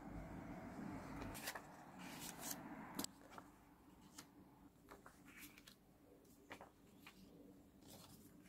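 Faint handling of paper and stationery: scattered light taps and rustles, the sharpest a little after three seconds in.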